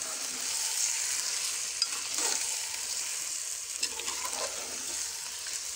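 Mutton, onion and yogurt masala frying in a steel pressure cooker, sizzling steadily as a spoon stirs it, with a few scrapes of the spoon against the pot.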